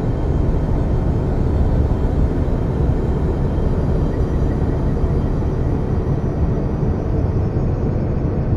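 Steady, unbroken low rumbling drone, a dense noisy hum strongest in the deep bass with no distinct events, in the manner of a 'space sound' ambient soundtrack.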